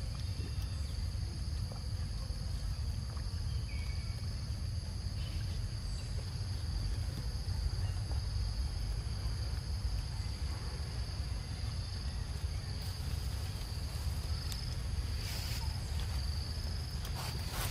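Steady, high-pitched drone of a chorus of forest insects over a low, steady rumble, with a few short crackles near the end.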